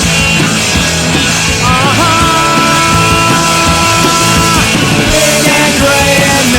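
Punk-style rock band playing an instrumental passage with guitars, bass and drums. A long held high note rings out from about two seconds in until about four and a half seconds.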